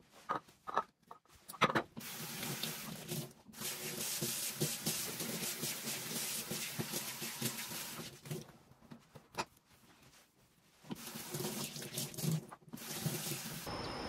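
Kitchen tap running into a sink during dishwashing, with clinks and knocks of dishes and pans. The water runs for about six seconds, stops for a few seconds while dishes clatter, then runs again and cuts off just before the end.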